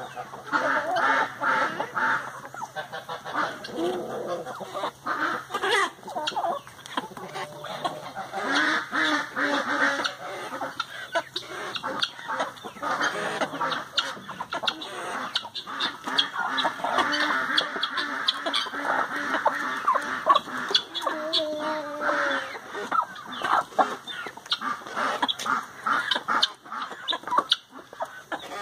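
Chickens and guineafowl calling over one another: a continuous chatter of clucks and harsh honking calls.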